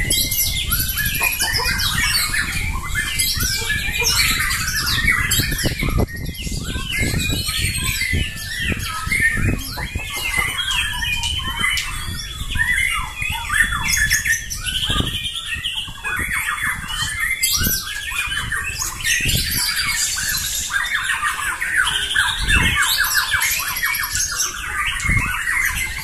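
Several caged white-rumped shamas (murai batu) singing at once, a dense, unbroken chorus of rapid chirps, trills and whistles as the birds challenge one another with bursts of song. A low rumble runs underneath.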